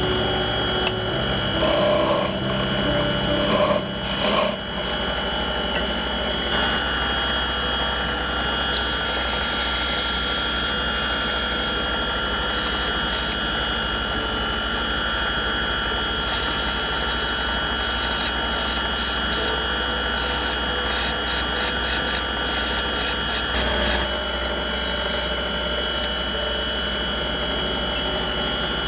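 Wood lathe running with a steady hum and whine while a tool or abrasive rubs and scrapes against the spinning wood in short repeated strokes, most frequent in the second half.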